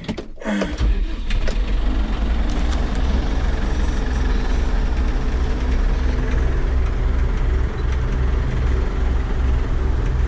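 A vehicle engine starts under a second in and runs at a steady, low rumble.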